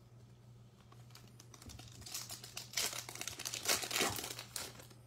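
Foil wrapper of a 2021 Panini Chronicles football card pack being torn open and crinkled by hand. It starts about two seconds in, runs for a few seconds and is loudest near the end.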